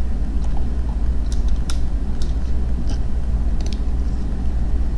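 Steady low hum of background noise on the microphone, with a few scattered clicks of a computer mouse and keyboard.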